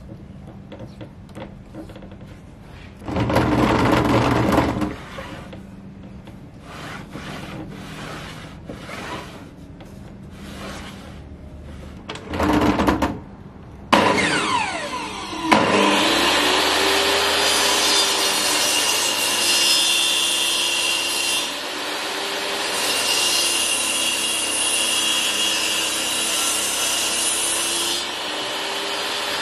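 Knocks and handling noises with two brief louder scraping stretches, then about halfway through a table saw is switched on, spins up and runs steadily. Its pitch sags and recovers several times as the blade cuts a cove into a board fed diagonally across it against an angled fence.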